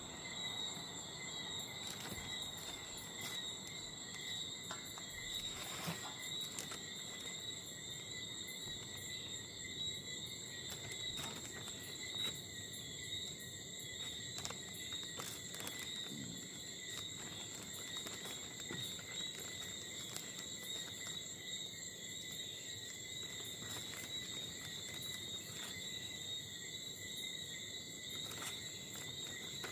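Night insect chorus: crickets trilling steadily in several high pitches, with scattered light clicks.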